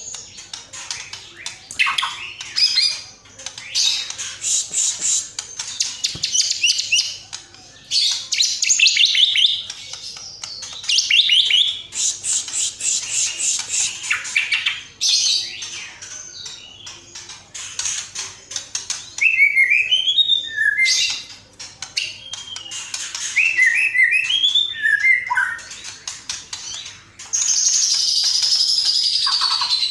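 Recorded songbird calls: repeated bursts of rapid, high chirping trills, with lower whistled phrases about two-thirds of the way through, and a continuous high twittering that starts near the end.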